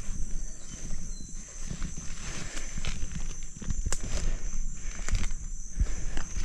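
Footsteps through tall grass and brush, with clothing and gear rustling and irregular low thumps, over a steady high hiss.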